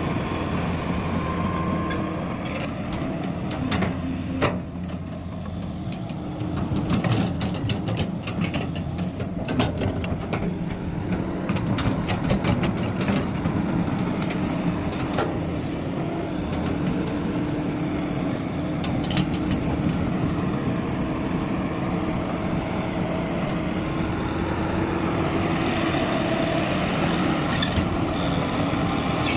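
Caterpillar E200B hydraulic excavator's diesel engine running steadily under working load, with scattered clanks and knocks, most of them between about two and twelve seconds in.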